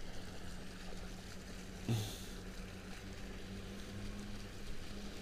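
Faint handling noise as a bass is gripped in a mesh landing net, with a brief rustle and soft thump about two seconds in. Under it runs a steady faint low hum.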